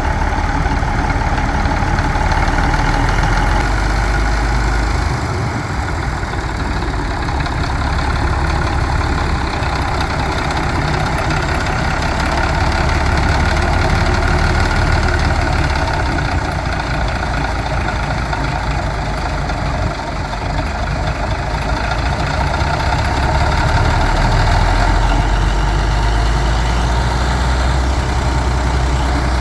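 International Harvester TD24 crawler dozer's six-cylinder diesel engine running steadily. Its deep low rumble drops about five seconds in and swells again near the end.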